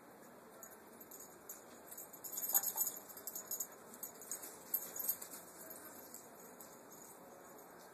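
Light, high-pitched jingling and clicking, a busy run of it from about two to five seconds in, then a few scattered clicks.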